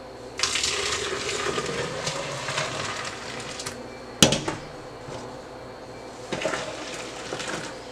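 Blended juice poured from a stainless steel bowl into a plastic blender jug for about three seconds, then a sharp knock about four seconds in. Near the end the juice is poured briefly from the jug back into the bowl.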